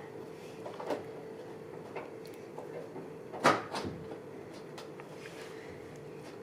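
Scattered knocks and clicks of hand work in a workshop, with one louder knock about three and a half seconds in, over a steady low hum.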